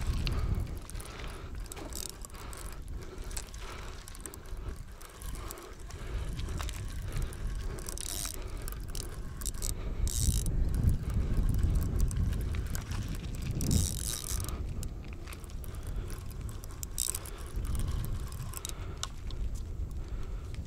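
Fishing reel being cranked while a hooked carp is played in: the reel's gears whir and click, with several short hissing bursts along the way. A steady low rumble runs underneath.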